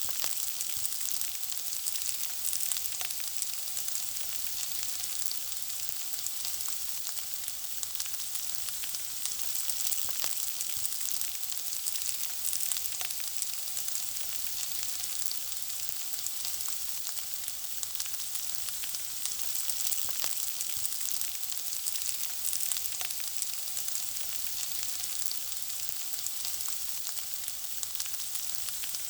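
Food frying: a steady high sizzle laced with many small crackles and pops.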